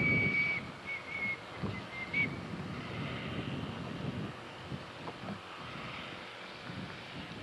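Live steam Atlantic-type locomotive #988: its steam whistle sounds a few short high toots in the first two seconds or so, over the exhaust chuffs of the engine working. The chuffs carry on after the whistle stops, with wind noise on the microphone.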